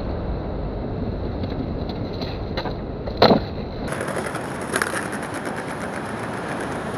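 Skateboard rolling over rough concrete with street traffic passing, a few clicks and one sharp clack of the board about three seconds in.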